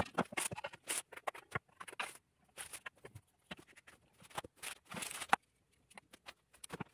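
Scattered light clicks, taps and rustles of stereo microscope parts being handled and fitted together, coming at an uneven pace.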